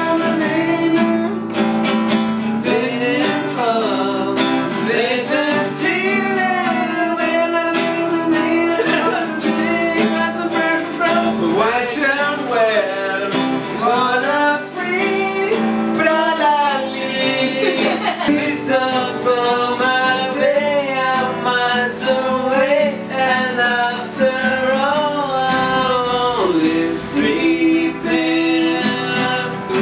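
A man singing a song while accompanying himself on an acoustic guitar.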